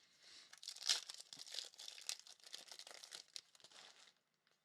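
Trading card pack wrapper being torn open and crinkled, a run of crackly rustling that is loudest about a second in and stops about four seconds in.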